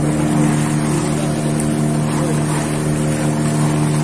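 A tour boat's engine running steadily, an unchanging engine note with a constant hiss of water and wind over it.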